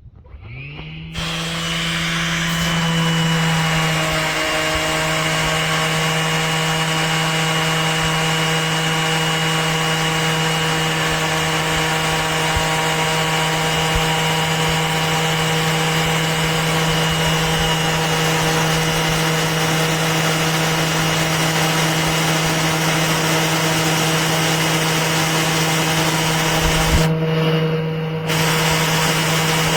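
Makita XOB01Z 18V cordless random orbit sander starting up about a second in, its motor rising in pitch and then running at a steady hum with a scratchy sanding noise on wood. Near the end the scratchy noise drops out for about a second while the motor keeps running, then comes back.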